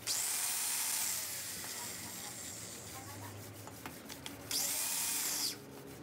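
Hand-held power tool run in two short bursts while working an engine cylinder head's valve in its seat. Each burst is about a second long, with a high whine that rises as the tool spins up and falls as it slows, and a quieter rubbing, grinding noise between them.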